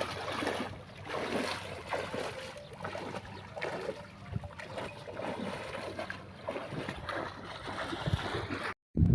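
Muddy pond water sloshing and splashing in irregular bursts as people wade and grope through the shallows by hand. It cuts off suddenly near the end.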